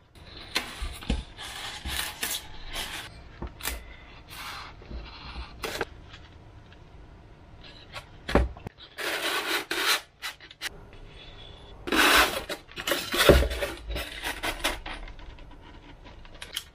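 Sheets of 6 mm Depron foam rubbing and scraping as they are worked and handled by hand, in irregular bursts with a louder cluster a little past the middle.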